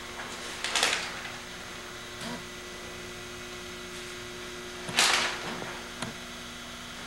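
A steady low hum, with two short rustling noises, about a second in and again about five seconds in, and a few light knocks.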